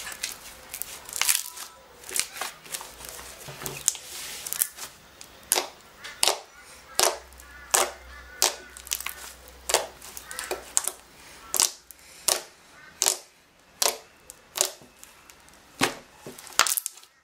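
Slime being pressed and kneaded by hand, giving a steady run of sharp, wet pops and clicks as air pockets burst, about one or two a second.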